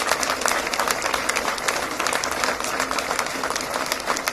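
Crowd of uniformed troops applauding, with many hands clapping densely and steadily.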